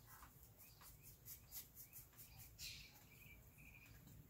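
Near silence: room tone with faint, short high-pitched ticks and a brief soft hiss.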